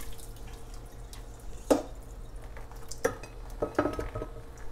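Metal cookware clanking as a cooking pot and a stainless-steel colander are handled while draining boiled pumpkin seeds. A sharp clang comes about 1.7 s in, then a few lighter knocks between about 3 and 4 s, some ringing briefly.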